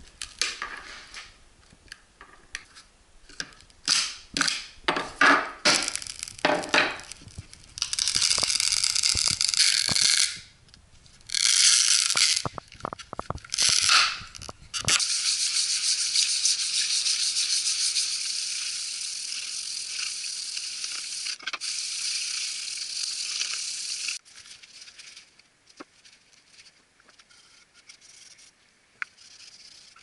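Hand work on a resin-cast wooden block: short irregular scraping and cutting strokes of a utility knife on the resin and mould, then a long steady rasp of a hand sanding block on the wood for about nine seconds, ending with light handling knocks.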